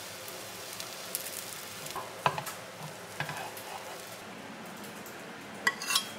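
Rolled egg omelet sizzling gently in a nonstick frying pan: a steady frying hiss with fine crackle. A metal spatula clicks a few times, loudest just before the end.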